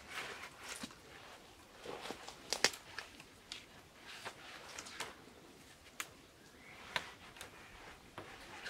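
Thin cord being wrapped around a stick and pulled tight against a tree trunk by hand: faint rustling with scattered sharp clicks and creaks of cord on bark, the sharpest about two and a half seconds in.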